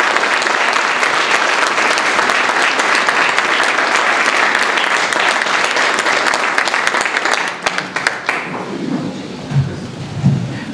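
Audience applauding steadily, dying away about eight seconds in, followed by a few soft thuds.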